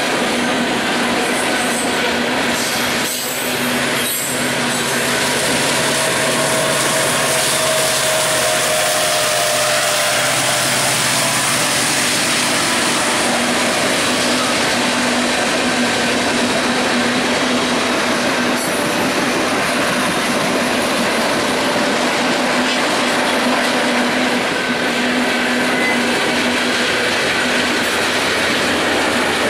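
Union Pacific freight train rolling past at close range: a steady, loud rush of steel wheels on the rails under covered hoppers and boxcars. A mid-train diesel locomotive goes by about a quarter of the way in, with a low hum and a faint tone that falls slightly in pitch as it passes.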